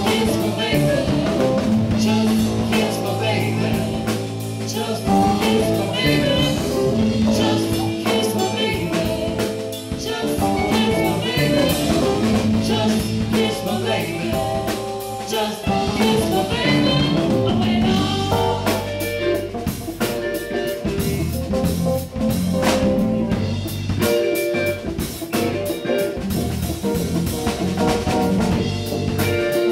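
Live band playing: a woman singing lead over drum kit, electric bass and keyboard.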